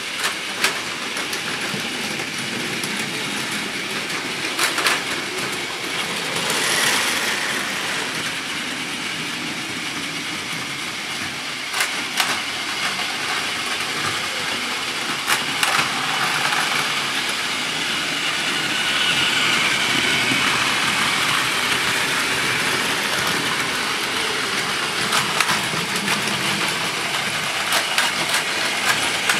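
Several battery-powered Plarail toy Shinkansen trains running together on blue plastic track: a steady whir of small motors and wheels rattling over the track, with sharp clicks here and there.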